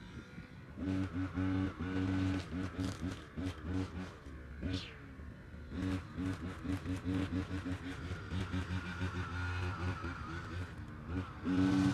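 Petrol brush cutter running, its engine note rising and falling in quick, uneven pulses as grass is cut.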